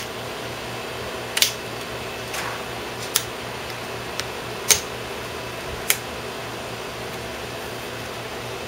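Plastic snap clips of an Acer Aspire One D255E netbook's screen bezel popping loose as the bezel is pried off by fingertips: about six sharp clicks spread over several seconds, over a steady background hum.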